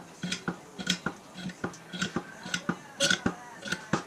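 Large steel C-clamp being cranked down: a quick, irregular run of sharp metallic clicks and clinks, about three or four a second, with faint metal ringing in the middle.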